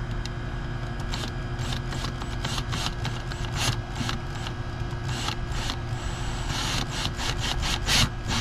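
A string of irregular clicks and light knocks, with some rubbing, from hands working the plastic fish-finder mount on a kayak, over a steady low hum.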